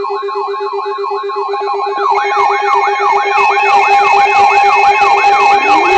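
Electronic warbling siren: a wailing tone sweeps down in pitch several times a second over a steady pulsing low hum. About two seconds in, a second, louder siren layer joins, and near the end a further tone begins to rise.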